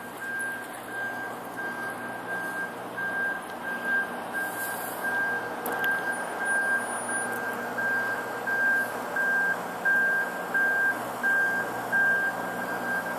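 A vehicle's reversing alarm beeping, one steady high pitch repeated evenly roughly once a second, over a steady background haze of noise.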